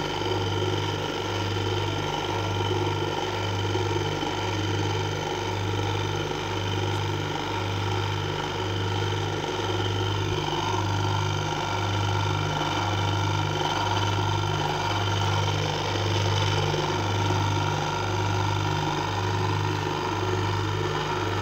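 Washing machine wash motor, a capacitor-run electric motor on the bench, running steadily in one direction. It gives a low electrical hum that swells and fades about once a second.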